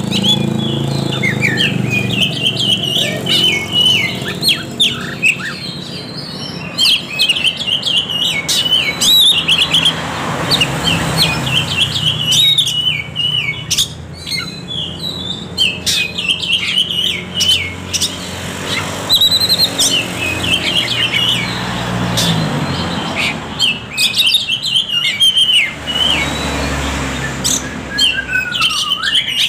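Oriental magpie-robin (kacer) singing: quick runs of high chirps, trills and whistles in phrases a few seconds long with short gaps between them, over a steady low hum.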